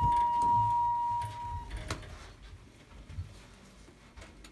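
A steady, high electronic beep that holds for about a second and a half and then cuts off, followed by a few faint knocks.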